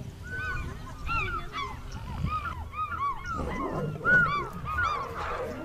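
Animal calls: a rapid series of short, high, arched chirping calls, several a second, with a rougher, lower noise joining about three and a half seconds in.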